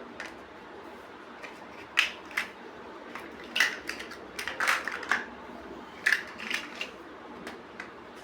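Plastic building bricks being handled and snapped together: a run of sharp plastic clicks at uneven intervals, with a busier cluster of clicks through the middle.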